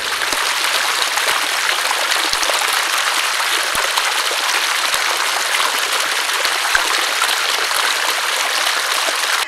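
Steady rush of running water, like a stream, that cuts in and out abruptly.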